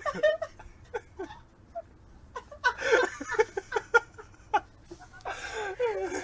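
People laughing in two bouts of breathy, choppy laughter: one about two and a half seconds in, the other near the end.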